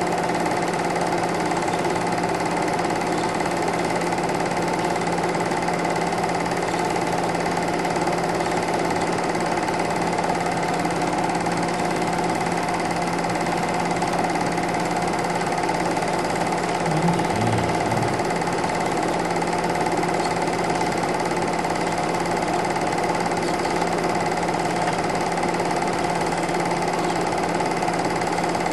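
Super 8 film projector running: a steady mechanical whir and clatter at an even level, with a brief low bump a little past halfway.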